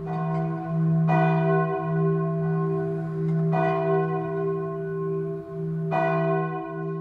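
Church bell struck four times at uneven intervals, each stroke ringing on into a long steady hum with many overtones.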